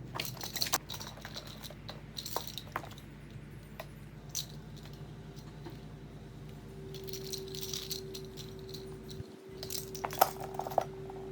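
Plastic clicks and rattles as the electric pump's hose fitting is pushed and worked onto an inflatable paddleboard's valve, over a steady low hum. The clicks are busiest at the start and again near the end.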